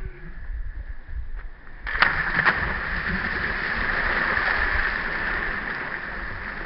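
People jumping off a boat into shallow water: two sharp splashes about two seconds in, followed by steady splashing and rushing water.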